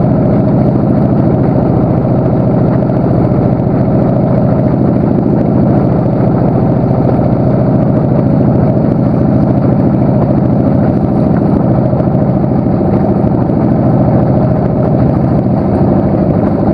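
Engine of a small fishing boat running steadily under way, a loud, even drone with a low hum.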